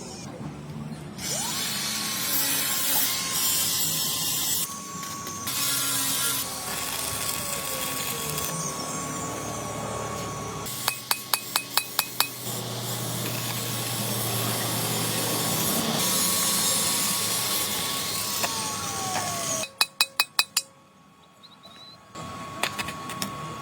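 Workshop tool noise during engine repair: scraping and a power tool running with a steady whine, changing abruptly several times. Twice, once near the middle and once near the end, there is a quick run of about six sharp clicks.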